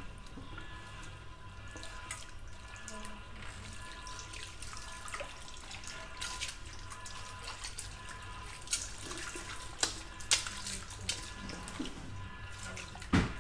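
Water spraying from a salon sink's handheld shower nozzle onto wet hair and splashing into the shampoo basin, with scattered small splashes and drips. A sharp knock near the end is the loudest sound.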